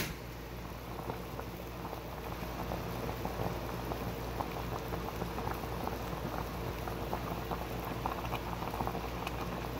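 Water at a rolling boil with ramen noodles in a Jetboil MiniMo cooking cup, bubbling and popping irregularly, over the steady sound of its gas canister burner.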